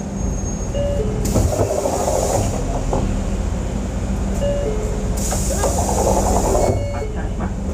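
Two-note descending door chime of a 2012 Mitsubishi Fuso Aerostar city bus, sounding twice, each time followed by about a second of air hiss from the pneumatic doors working. Under it runs the bus's steady idling hum.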